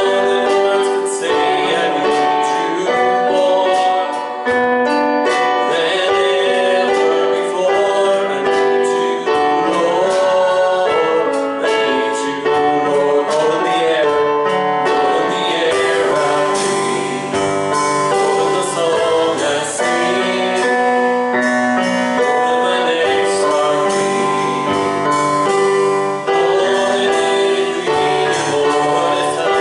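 Gospel worship music: singing with piano or keyboard accompaniment.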